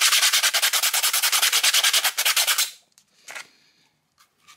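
Hand sanding of a 3D-printed tray in wood-like filament: quick, even back-and-forth rubbing strokes that stop abruptly about two and a half seconds in, followed by a few faint handling noises.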